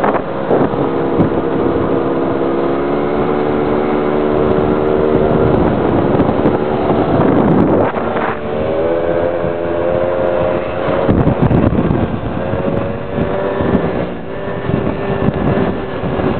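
Small scooter engines (50–90cc two-strokes) running steadily at riding speed, with wind buffeting the microphone. The engine pitch steps up a little about halfway through.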